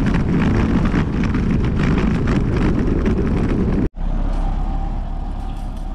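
Loud rushing wind and road noise on the microphone of a moving bicycle. The sound cuts out for an instant about four seconds in and comes back quieter and steadier.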